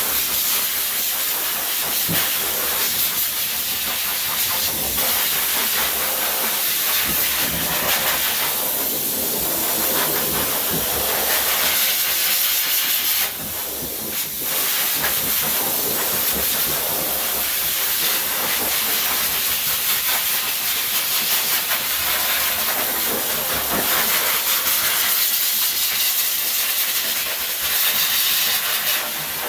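Groomer's forced-air dog dryer blowing through its hose onto a wet dog's coat: a loud, steady rushing hiss that dips briefly about halfway through.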